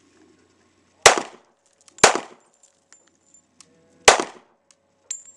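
Three pistol shots from a Springfield Armory XD handgun, about a second in, a second later, and two seconds after that, each a sharp crack with a short ringing tail.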